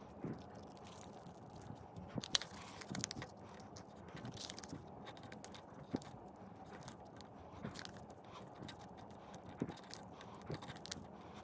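Plain printer paper being folded and creased by hand into a small fortune teller: irregular crinkling and crackling with sharper snaps, the loudest a little over two seconds in and again about six seconds in.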